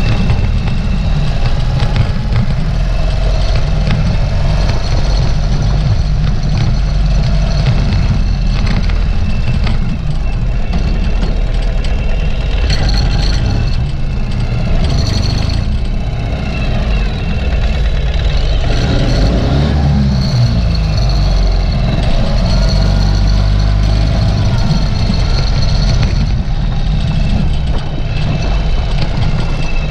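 Ural sidecar motorcycle's air-cooled flat-twin engine running steadily under way, with the revs shifting about two-thirds of the way through.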